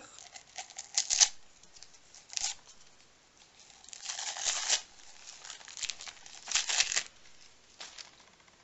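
Gift-wrap paper tearing and crinkling in several short rips as a small wrapped present is opened.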